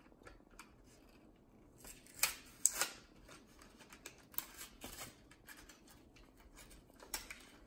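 Cardboard backing and plastic blister of a Hot Wheels pack being torn and peeled open by hand: scattered short crackles and rips, the loudest about two to three seconds in and again near the end.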